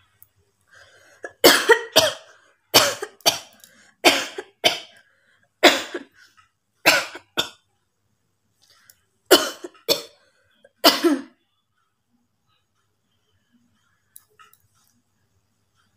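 A woman coughing on purpose, about a dozen short, forceful coughs, mostly in quick pairs, that stop a few seconds before the end.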